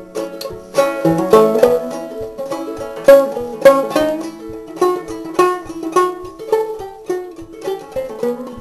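Solo banjo played clawhammer style: a steady, rhythmic stream of plucked, ringing notes in an old-time tune.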